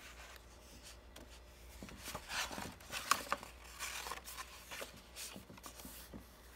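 Pages of a hardcover picture book being turned and flipped by hand: a run of short paper rustles and flaps, loudest about two to three and a half seconds in.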